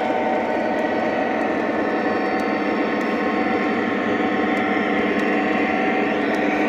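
O gauge model diesel locomotive and its train running along the layout's track: a steady rumbling hum from the running train.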